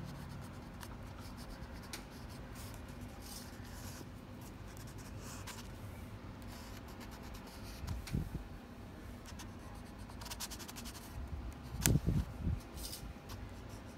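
Black water-soluble wax crayon scratching over paper in short strokes, with a few soft handling knocks about eight and twelve seconds in.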